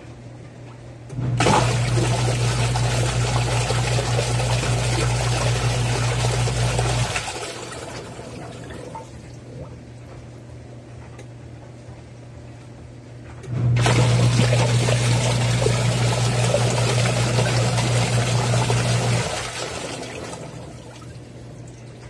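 Praxis Twin Tub semi-automatic washer's wash tub agitating water on the delicate setting: the motor hums low and the water churns for about six seconds, stops and swishes down, then after a pause of about six seconds runs again for about five seconds, as the pulsator turns one way then the other.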